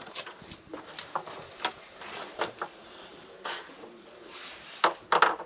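Irregular light clicks and knocks of tools and small hardware being handled while fitting CB parts to a truck, with two louder knocks near the end.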